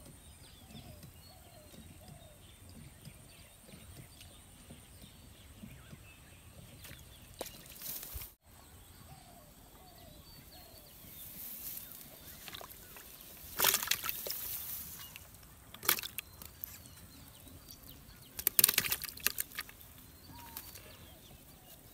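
Several short bursts of splashing and rustling in the second half as a hooked fish, taken for a catfish, is pulled out through weedy pond water and flaps in the grass; the loudest burst comes near the end.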